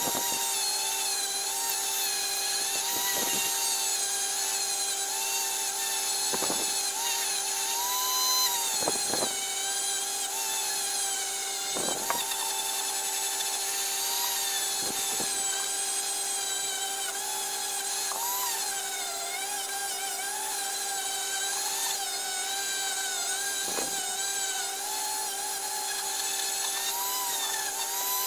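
Hand-held electric die grinder running steadily at high speed with a constant whine, its spinning wheel scrubbing a corroded metal planer part clean. The pitch wavers as the wheel bears on the work, with a few brief knocks.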